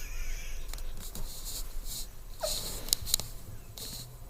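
A woman's stifled laughter: short wheezing, sniffing breaths about every second, with one brief squeak of voice falling in pitch about two and a half seconds in.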